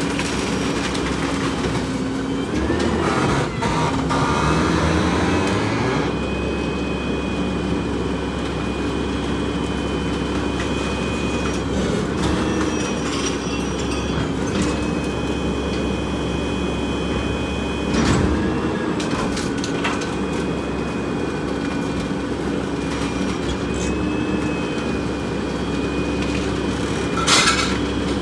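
Rear-loader garbage truck running its hydraulic packer. The engine speeds up a few seconds in and holds steady, with a high whine over it. A metallic clank comes about two-thirds of the way through and another near the end.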